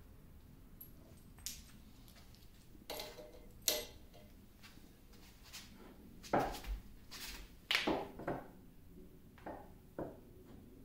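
Scattered metal clinks, knocks and short scrapes as parts of a 1950 LeBlond Regal lathe's carriage and cross slide are handled and worked loose by hand, with most of the knocks in the second half.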